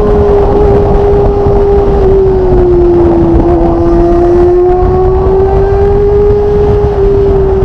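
Kawasaki ZX25R's inline-four engine breathing through an aftermarket Magna exhaust, ridden at a steady pitch that dips slightly and climbs back, with wind rushing over the bike-mounted camera.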